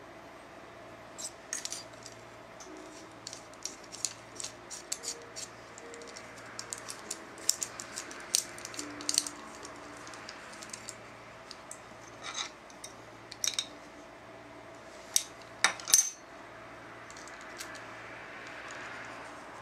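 Small steel parts of a hand-built bicycle rear derailleur clinking and clicking together as they are handled and turned with a spanner: irregular sharp metallic clicks, the loudest few about fifteen seconds in.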